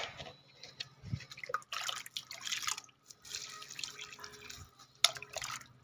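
Water scooped from a bucket with a small plastic mug and poured onto the soil of potted plants, in a few short pours with gaps between them. A sharp knock sounds near the end.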